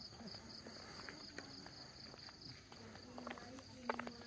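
Insects chirping steadily in a high, evenly pulsing trill, with a few sharp clicks near the end, the loudest about four seconds in.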